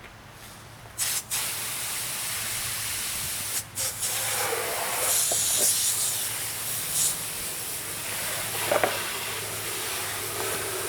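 Water spraying from a hose nozzle: a steady hiss that starts about a second in, with a few louder surges, as degreaser foam is rinsed off plastic car trim pieces.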